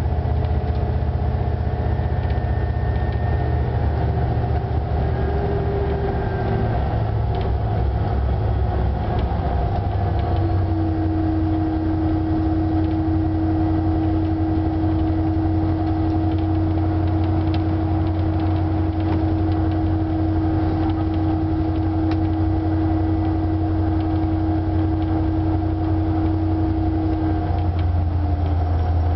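Vossloh G1000 BB diesel-hydraulic locomotive under way, heard from inside its cab: a steady low engine drone. About ten seconds in a steady whine sets in, and it drops a little in pitch near the end.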